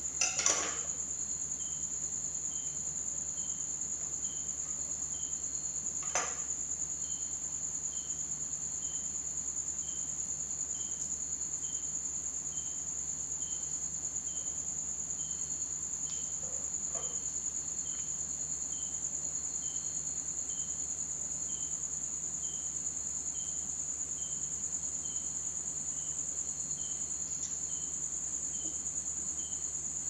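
Crickets trilling steadily and high-pitched throughout, with a fainter chirp repeating about every two-thirds of a second. A few light knocks of a knife and hands on a wooden table come near the start and again about six seconds in.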